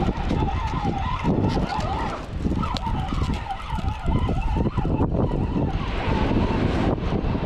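Spinning reel being wound in to retrieve a hooked small fish, giving a wavering whirr, over heavy wind buffeting on the microphone.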